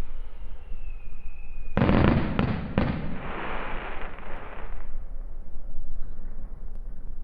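Fireworks: a thin whistle, then a loud burst about two seconds in, two more quick bangs, and a crackling fizz that fades away after a few seconds.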